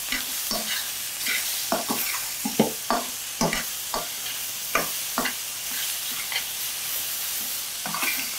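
Shrimp with garlic sizzling in a stainless steel frying pan while being stirred, with a utensil scraping and knocking against the pan at irregular moments.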